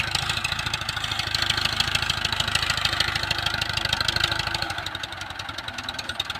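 Tractor's diesel engine running with a rapid, even firing beat, then easing off and getting quieter about two thirds of the way through.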